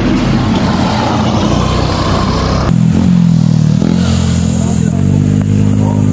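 Motorcycle engines running as the bikes pass through a bend. About two and a half seconds in the sound cuts abruptly to a steadier, deeper engine note.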